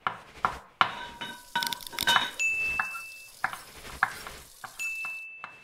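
A quick run of kitchen sound effects: clinks and knocks of utensils and dishes over a sizzling-like hiss, with a thin steady high tone twice, once in the middle and once near the end.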